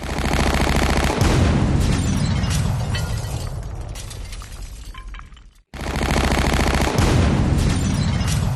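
Machine-gun fire sound effect: a long rapid burst over a heavy rumble that fades over about five seconds, then a short break and a second identical burst.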